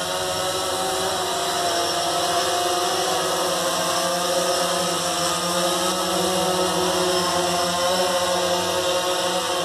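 DJI Phantom 3 quadcopter's motors and propellers humming as it hovers and descends close overhead: a steady hum of several tones that waver slightly against one another, with a hissing wash of propeller air.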